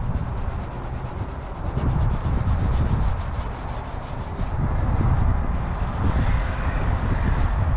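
Oxidation-remover wipe scrubbed back and forth over a badly oxidized, rough plastic headlight lens: a continuous scratchy rubbing.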